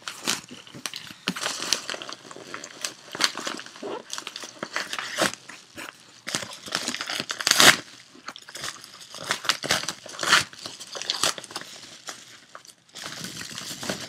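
Plastic shipping mailer being cut open with scissors and handled, giving irregular crinkling and rustling that is loudest a little past halfway through.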